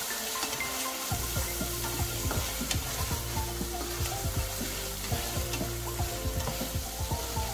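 Hard-boiled eggs sizzling in hot oily onion-spice masala in a metal pan, being stirred and turned with a slotted spatula that scrapes and knocks against the pan.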